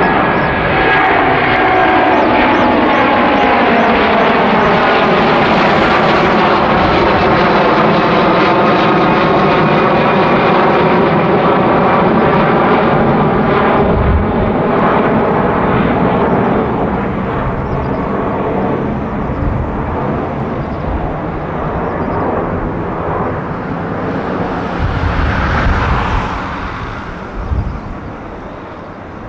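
Airbus A330-300's Rolls-Royce Trent 700 turbofans at climb power just after takeoff, passing overhead: a loud jet roar with whining tones that slide down in pitch as the aircraft goes by. From about halfway through, the sound fades gradually as it climbs away.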